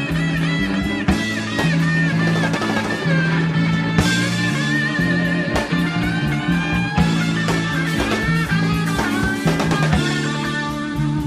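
Live blues band playing an instrumental stretch: an electric guitar lead line with bent notes and vibrato over a steady bass line and drum kit.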